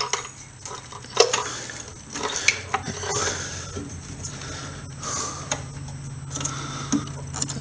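Engine-bay wiring harness being handled and pulled up: wires rustling and plastic connectors clicking and knocking against each other and the engine, in scattered light clicks.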